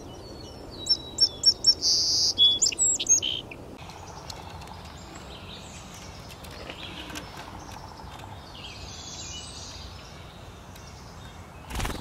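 Wild songbirds singing: a loud burst of quick, high chirps and trills from about one to three and a half seconds in, then fainter songs further off. A brief knock near the end.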